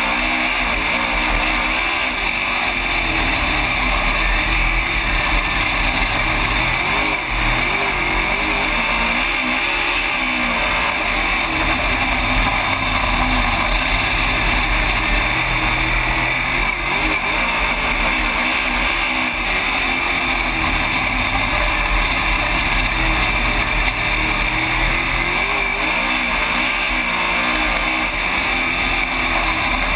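Race car engine at racing speed, heard from inside the cockpit. It runs loud and steady, its pitch rising and falling several times as the throttle is eased for the turns and reapplied.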